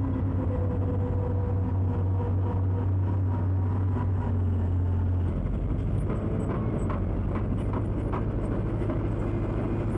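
Heavy construction machine's engine running steadily, its low drone dropping in pitch about five seconds in, with light clanks and knocks after that.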